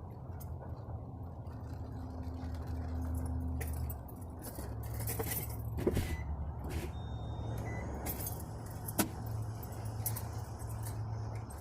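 A motor running with a steady low hum that changes pitch about four seconds in, with two sharp clicks, near six and nine seconds in.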